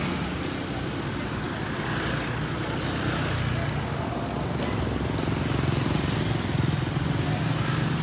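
A steady low mechanical rumble.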